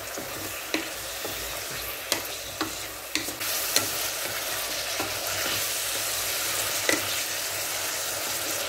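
Meat frying in oil in a rice cooker's inner pot, sizzling steadily while being stirred, with a utensil clinking against the pot now and then. The sizzle grows slightly louder a little over three seconds in.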